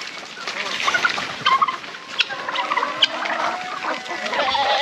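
Royal Palm turkeys calling, a run of short, scattered calls one after another.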